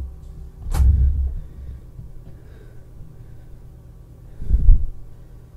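Breath blowing against a close microphone: two short low blasts of air, one about a second in and another near the end, over a faint steady hum.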